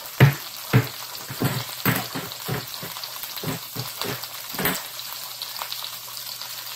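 Butter and garlic sizzling steadily in an electric skillet. Over it come about ten sharp clicks and knocks from a metal garlic press being loaded and squeezed, loudest twice near the start and stopping a little under five seconds in.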